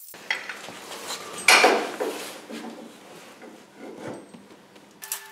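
Metal clanks and scrapes of a steel tow-ball hitch and its bolts being handled and fitted against a steel frame mount, with a louder clunk about a second and a half in.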